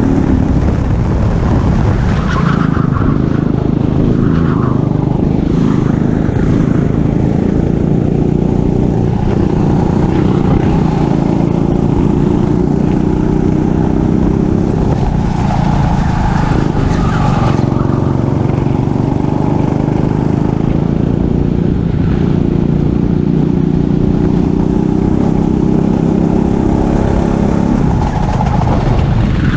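Racing kart engine running hard through a lap, its pitch climbing under throttle and dropping several times as it lifts for corners.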